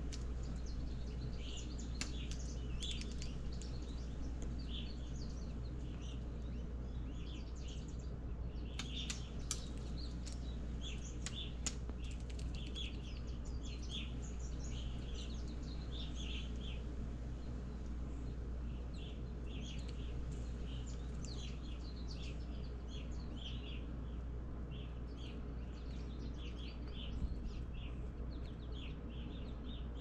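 Many short chirps of wild songbirds coming in through the open window, with a few sharp taps, most of them between about 9 and 12 seconds in, from the hairy woodpecker pecking at the food held in a hand. A steady low hum runs underneath.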